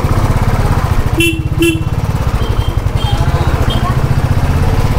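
Motorcycle engine running at low speed with a steady low pulsing exhaust. A horn gives two short beeps about a second in.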